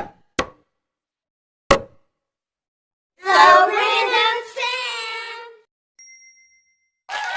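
Three short ringing dings in the first two seconds, then a wavering sung or voiced phrase lasting about two seconds, and a faint high beep near the end.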